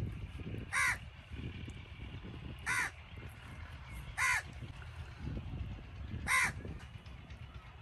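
A crow cawing four times, each caw short and harsh, spaced about one and a half to two seconds apart.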